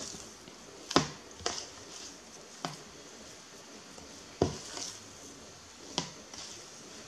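Hands kneading a sticky wheat and glutinous rice flour dough in a plastic bowl: soft squishing and handling, broken by about five sharp knocks as the hand and bowl bump.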